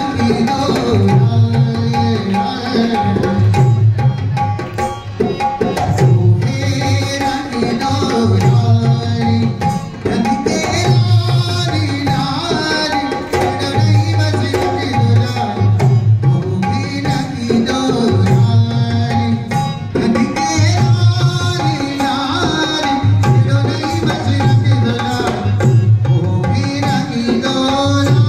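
Live Rajasthani folk music: a dholak hand drum beating a steady, driving rhythm under harmonium and a man's singing.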